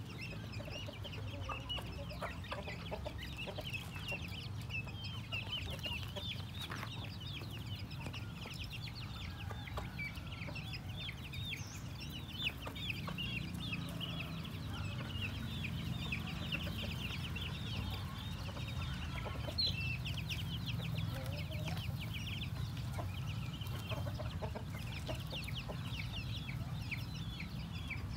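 A brood of chicks peeping constantly in quick, high chirps, with a hen clucking now and then, over a steady low hum.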